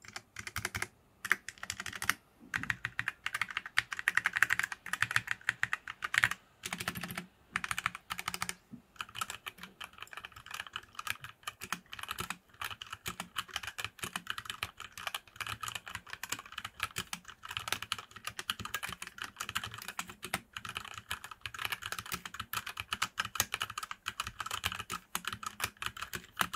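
HyperX Alloy Origins 65 mechanical keyboard being typed on with both hands, keys clacking in quick succession. The typing breaks off for short moments a few times in the first several seconds, then runs on as steady fast typing.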